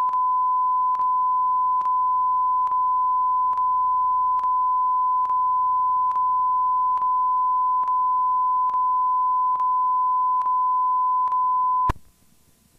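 Steady pure electronic test tone at one pitch, with a faint tick slightly more than once a second; it cuts off suddenly near the end, leaving only faint hiss.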